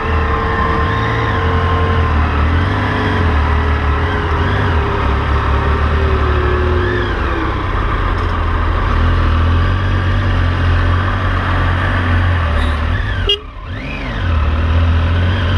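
Triumph Tiger 800 XC's three-cylinder engine running while riding, its pitch rising and falling with the throttle. Near the end the sound briefly drops away for about half a second, then comes back.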